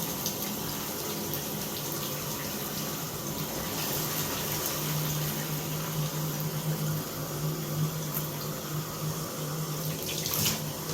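Shower running with the hot water on, a steady rush of water. About five seconds in a steady low humming tone sets in and holds: the continuous noise from behind the shower handle that comes only with hot water, which the owner traces to the shower valve cartridge.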